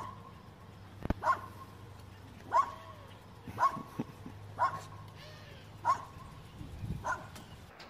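A small dog barking in single short barks, seven of them evenly spaced about a second apart.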